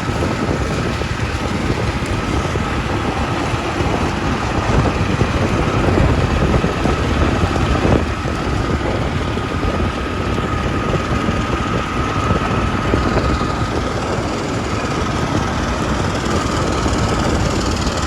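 Combine harvester running steadily as it cuts wind-flattened corn with a platform head, with a faint steady whine through the middle.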